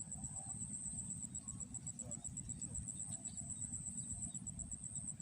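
An insect trilling steadily at a high pitch in a fast, even pulse, over a low rumbling noise.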